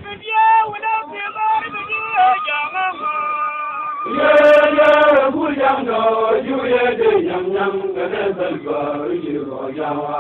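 Male voices chanting in a sung, rhythmic line, with one long held note about four seconds in.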